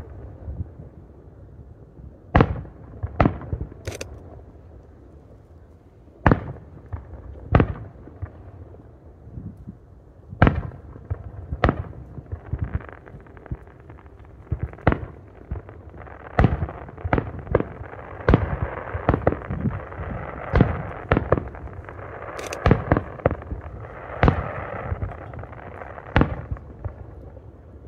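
Aerial firework shells bursting: sharp bangs at irregular intervals, a second or more apart at first and coming faster in the second half. For several seconds near the end a steady rushing noise fills the gaps between the bangs.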